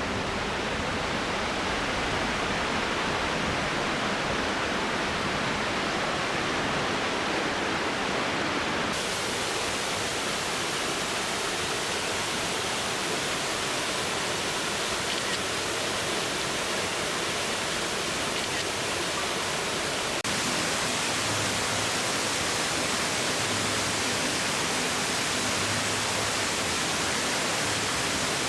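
Fukuroda Falls' water pouring down, a steady, even rush. Its tone shifts suddenly about nine and again about twenty seconds in.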